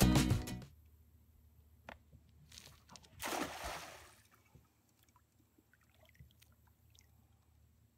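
Longnose gar thrashing at the water surface in a cast net: a short splash about two and a half seconds in, then a longer burst of splashing about a second later. Intro music cuts off in the first second.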